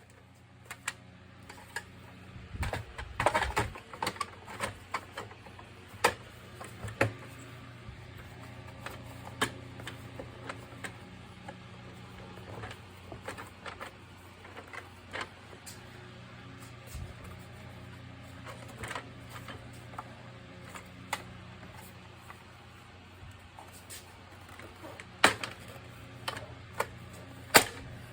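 Irregular sharp plastic clicks and knocks, some in quick clusters, over a steady low hum from an AEG-Electrolux CycloneXL vacuum cleaner.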